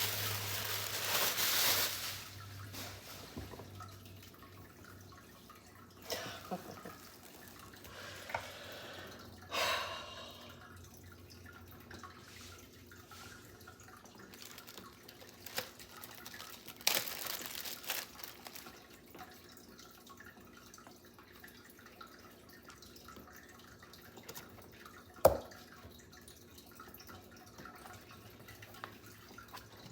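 Scattered small taps, clicks and rustles of items being handled, with a louder stretch of rustling noise in the first two seconds and one sharp click about 25 seconds in, over a faint steady low hum.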